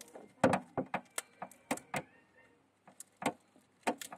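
Hamster biting and gnawing at a wafer ice cream cone: a string of sharp, irregular crunches and cracks, the loudest about half a second in.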